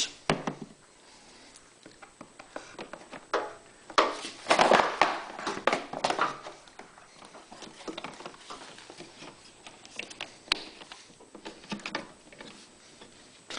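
Hands working a rubber fuel hose onto a fitting: rustling with scattered clicks and taps, loudest about four to six seconds in.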